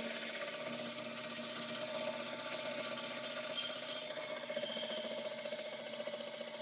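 Bandsaw running steadily while its blade cuts lengthwise into the end of a round wooden handle.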